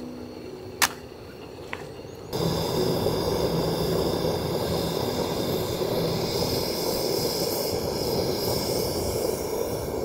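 A stainless steel kettle heating on a gas stove burner: a steady rushing hiss of flame and heating water that starts abruptly a couple of seconds in. Before it, a sharp tap sounds about a second in.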